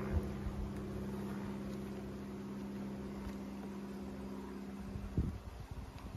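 Honeybees buzzing as a steady low hum over the open hive, stopping abruptly about five seconds in. Then a few soft knocks of wooden frames being pushed together with a hive tool.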